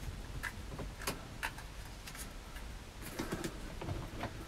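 A scattering of light, irregular clicks and taps from small plastic parts being handled: the battery monitor gauge and its threaded plastic mounting ring.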